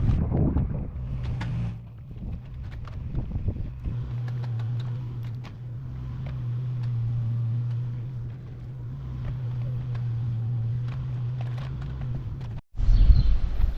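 An engine running steadily at an even low hum, with scattered clicks and knocks over it; it stops abruptly near the end.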